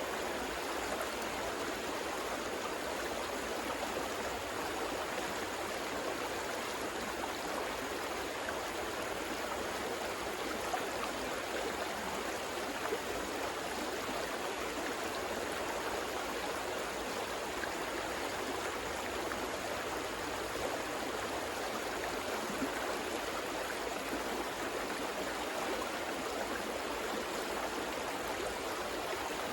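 River water flowing steadily, a constant rushing wash with faint gurgles.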